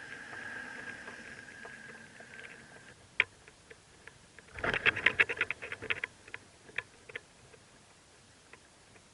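Mockingbird nest: a faint steady high begging note from the nestlings that stops about three seconds in, then about a second and a half of rapid scratchy rustling and clicks in the nest material, with a few single ticks after.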